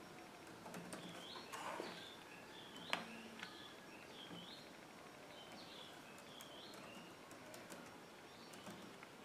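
Faint bird chirps repeating about once a second, with a few scattered laptop key clicks; the sharpest click comes about three seconds in.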